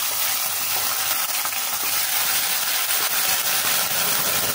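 Hot oil sizzling steadily in a kadai as ginger paste is added to a tadka (tempering) of whole spices.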